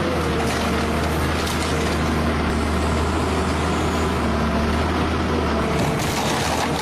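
Heavy forestry machine's engine running steadily under load, a constant low hum with a haze of mechanical noise over it.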